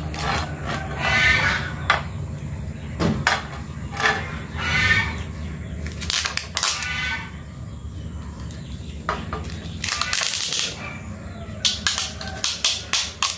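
Adhesive tape pulled off its roll in several separate pulls a few seconds apart as it is wound around an aluminium pipe. A quick run of crackling tape noises comes near the end.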